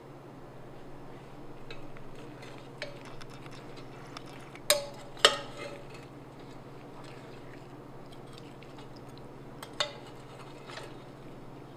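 Metal spoon stirring tea eggs in their braising liquid in a ceramic pot, with soft scrapes and a few sharp ringing clinks against the pot, two close together about halfway through and one more near the end, over a steady low hum.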